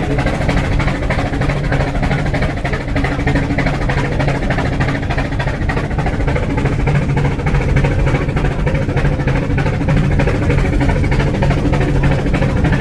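Steam rack locomotive chuffing in a fast, steady, even beat as it climbs, with a continuous mechanical clatter and a steady low hum underneath.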